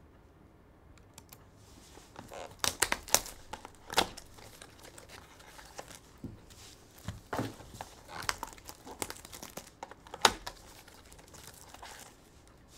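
Box packaging and foil trading-card packs crinkling and rustling in the hands as a sealed box of cards is opened and its packs are pulled out, in irregular sharp crackles starting about two seconds in.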